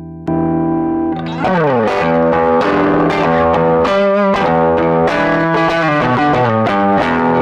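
Electric guitar played through a '70s Roland AG-5 Funny Cat harmonic mover and soft distortion sustainer pedal, with a sustained, lightly distorted tone. A held note gives way to a slide down about a second in, then a run of quick picked notes with a wavering note near the middle.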